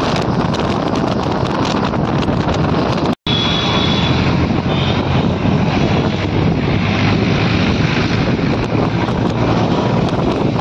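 Wind rushing over the microphone of a moving two-wheeler, cut off abruptly about three seconds in; then a steady engine drone with road noise.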